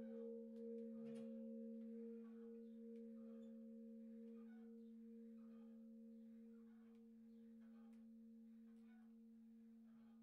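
Church bells dying away after ringing: a faint lingering hum from the large 1925 Prešov-cast bronze bell, tuned about B-flat, with a slow pulsing beat in its upper tone, slowly fading, and a higher partial dying out about two-thirds of the way through.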